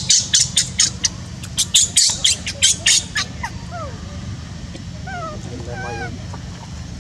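Baby macaque crying: a rapid run of shrill squeals, about four a second, for the first three seconds, then quieter calls that fall in pitch.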